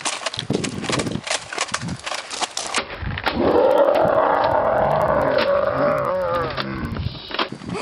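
A boy's long, loud battle cry, held for about four seconds and falling in pitch as it dies away. Before it come about three seconds of scuffing and knocking.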